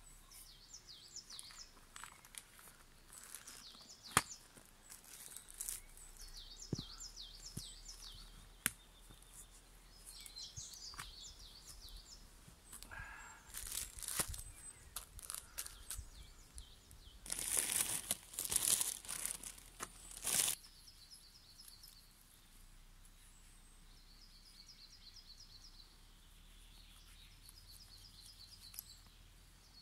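Plastic bag and paper wrapping crinkled and torn open by hand, in a run of loud rustling about two thirds of the way through, after a few sharp knocks earlier. Songbirds sing repeated trills in the background.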